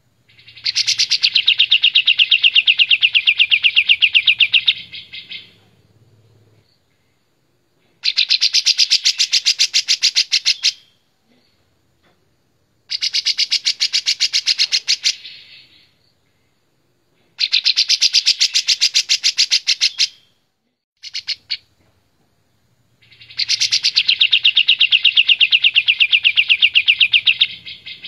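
Kapas tembak bulbul singing loudly in full song: long runs of fast, rapidly repeated chattering notes, five bouts of three to five seconds each separated by short pauses, with one brief burst between the last two.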